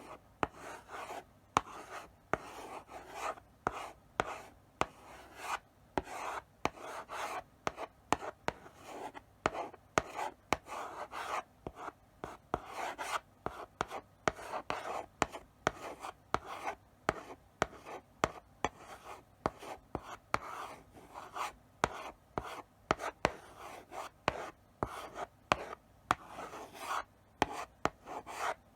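Chalk writing slowly on a blackboard: short scratchy strokes broken up by frequent sharp taps as the chalk meets the board.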